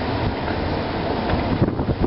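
Steady low rumble of passing street traffic, thinning near the end, with a few small knocks.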